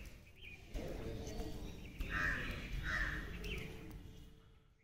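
A crow cawing twice, over a low rumble, the sound fading out near the end.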